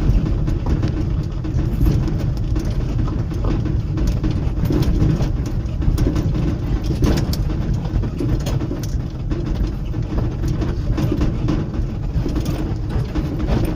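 An auto-rickshaw running along a road, heard from on board: a steady engine and road rumble with frequent short rattles and knocks.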